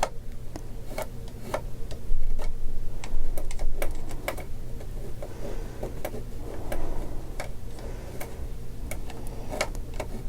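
Irregular light clicks and taps of small objects being handled and set down on a work table, several a second, over a steady low hum.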